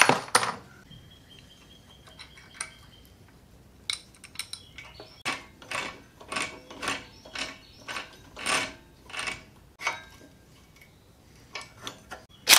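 Roller chain and sprocket on a small-engine scooter clicking and rattling as they are worked by hand, with a string of short sharp clicks, two or three a second, through the middle.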